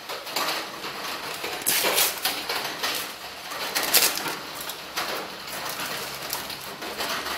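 Small plastic agar-agar powder sachet being handled and torn open, crinkling in a few short bursts.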